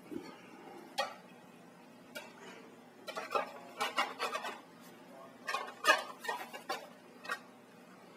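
Plastic clicks and taps from a smoke detector being handled and turned over, in scattered bunches of short knocks. A faint steady hum runs underneath.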